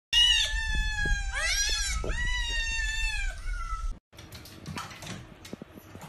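A cat meowing: two long, drawn-out meows, the first sliding slowly down in pitch and the second rising and then falling. After a sudden cut about four seconds in, faint splashing and dripping of water in a plastic basin as a small dog climbs into it.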